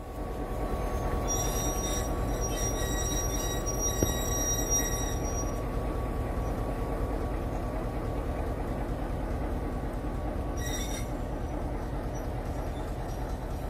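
General Motors 141 Class diesel locomotive, with its two-stroke EMD V8, running slowly past at close range. The engine gives a steady low rumble, and a thin high squeal from the wheels on the rails comes and goes in the first half.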